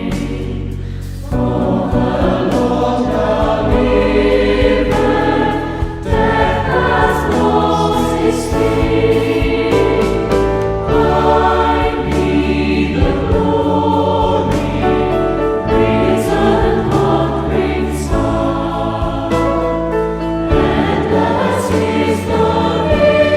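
A choir singing a hymn with instrumental accompaniment, in sustained phrases with a steady low bass beneath.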